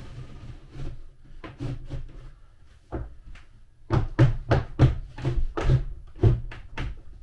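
A black shower pan being set down on a plywood truck floor with a few knocks, then footsteps thudding on the pan, about three heavy thuds a second over the last three seconds.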